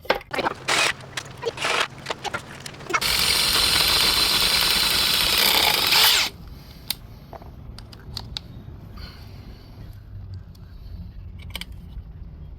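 A run of sharp knocks and short bursts, then a power drill running steadily for about three seconds before it stops suddenly, followed by quieter scattered clicks.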